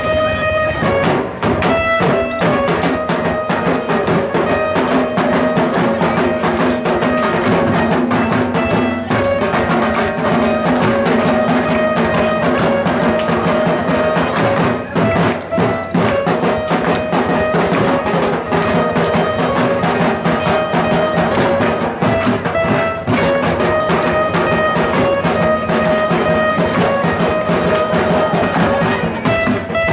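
Live instrumental music: two dhol drums beat a fast, driving rhythm under a guitar picking out a melody.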